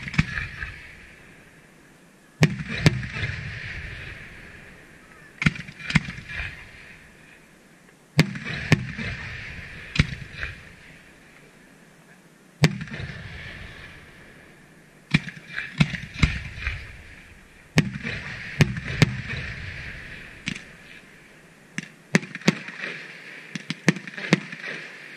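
Aerial firework shells bursting overhead, sharp booms every one to three seconds, often in quick twos and threes. Each boom trails off with a fading crackle and rumble over a second or two.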